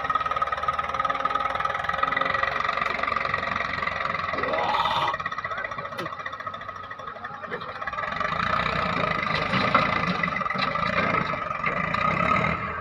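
Diesel engines of an Eicher 333 tractor and a JCB 3DX backhoe loader running, with a steady high whine over them; the level dips about five seconds in and builds back up a few seconds later.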